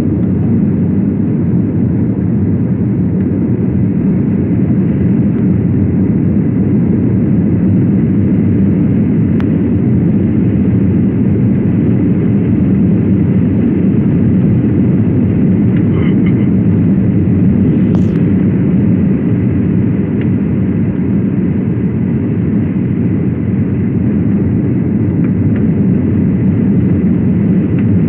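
Steady cabin noise of a Boeing 737-800 airliner on final approach with its flaps extended: the low rush of the engines and airflow heard from inside the cabin, with a brief sharp click about 18 seconds in.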